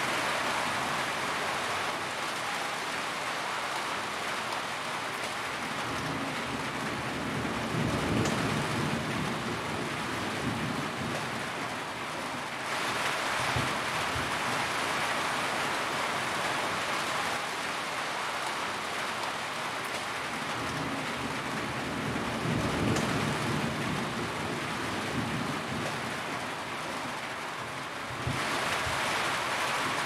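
Steady rain pattering on a metal roof, an even hiss of drops. A low rumble of distant thunder swells up twice. The rain sound shifts abruptly twice, as at a splice.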